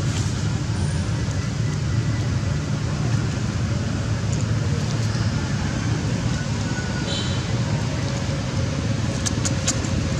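Steady low rumble throughout, with a few faint clicks near the end.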